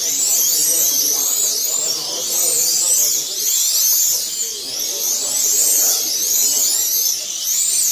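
Several 1/32-scale slot cars racing together on a multi-lane track: their small electric motors whine, each rising and falling in pitch as the cars speed up and slow for the corners, overlapping without a break.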